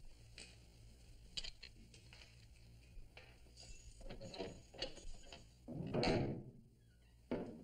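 Scattered small clicks and knocks, growing busier about four seconds in, then a louder half-second scrape or rustle about six seconds in and one sharp knock just before the end.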